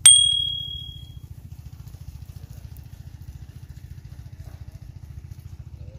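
A single bright bell-like chime from a subscribe-button notification sound effect, ringing out over about a second, over a steady low pulsing rumble like an engine running.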